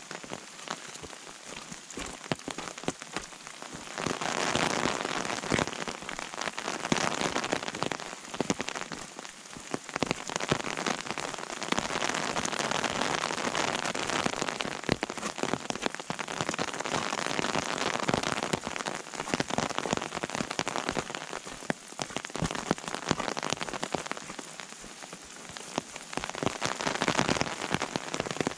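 Rain pattering, a dense crackle of drops that swells louder for several seconds at a time and then eases.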